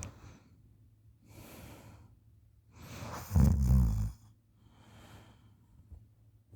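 A sleeping person snoring: soft breaths, then one loud, low, rattling snore about three seconds in lasting about a second, followed by a quieter breath.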